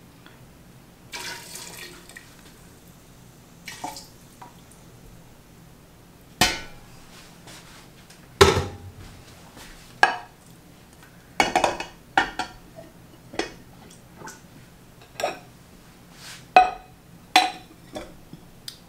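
About a dozen separate clinks and knocks, some ringing briefly, as a stainless steel pot is handled and plates are set down into large glass jars of pickles in syrup. About a second in there is a short trickle of liquid from the tipped pot.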